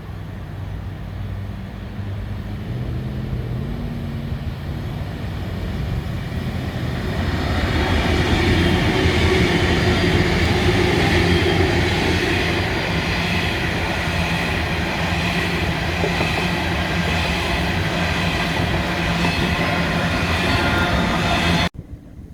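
A diesel train approaching and passing close by. Its engine note builds over the first several seconds, then holds as a loud, steady running noise, which cuts off suddenly near the end.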